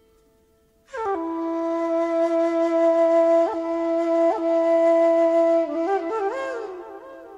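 Background instrumental music: a flute slides into one long held note about a second in, flicks in pitch twice, then plays a quick run of notes near the end and fades.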